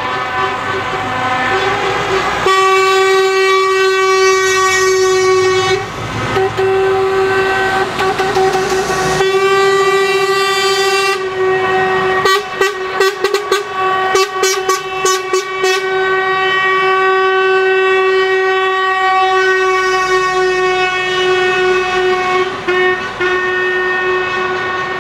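Truck air horns sounding long, overlapping held blasts as the trucks roll past one after another. Between about 12 and 16 seconds in, a horn gives a quick run of short toots.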